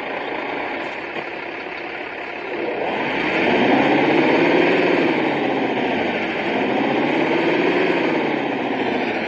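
Simulated engine sound, preset 9, from a remote-control car's engine sound module played through its small speaker. It idles steadily, then revs up and back down twice.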